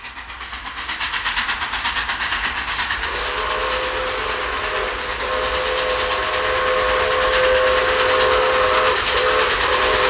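Steam locomotive running, with rapid chuffing and hiss that grow louder. From about three seconds in a chime steam whistle blows several notes together, held long with short breaks near five and nine seconds.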